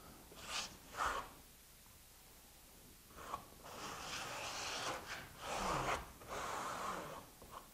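Steel trowel scraping over fiberglass mesh as it is pressed into wet EIFS base coat: two short strokes near the start, then several longer strokes from about three seconds in.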